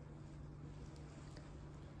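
Faint room tone with a steady low hum and nothing else distinct.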